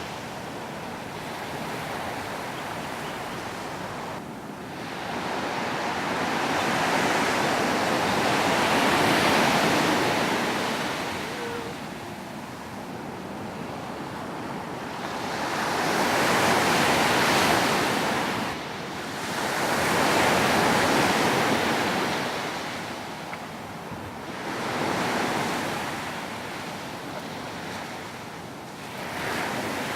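Waves breaking and washing up a beach in surges that rise and fall every several seconds.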